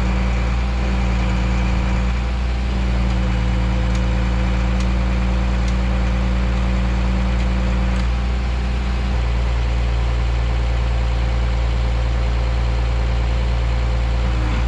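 Bucket truck's engine idling steadily, driving the hydraulic pump as the boom is lowered.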